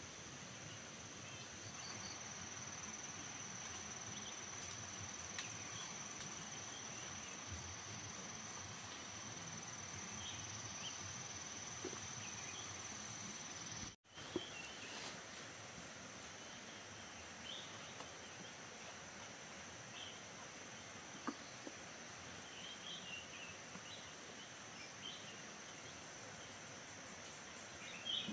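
Outdoor ambience dominated by a steady, high-pitched insect drone, with a few short chirps and faint clicks scattered through it. The sound drops out completely for a moment about halfway through.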